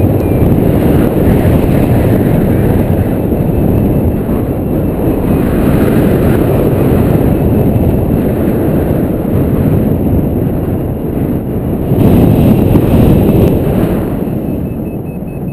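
Wind rushing over the camera's microphone in paraglider flight: a loud, steady low rumble of buffeting, swelling briefly about twelve seconds in.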